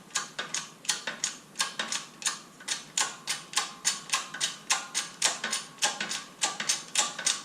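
12-ton hydraulic shop press being pumped to push a needle bearing out of a motorcycle suspension linkage, an even run of sharp clicks about three a second.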